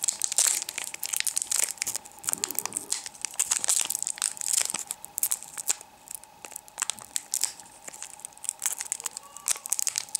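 Foil wrapper of a Yu-Gi-Oh! Order of Chaos booster pack being crinkled and torn open by hand: many sharp crackles, thickest in the first half and sparser later.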